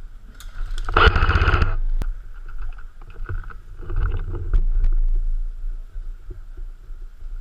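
Airsoft gun firing a short rapid full-auto burst about a second in, followed by low rumbling handling and movement noise on the microphone.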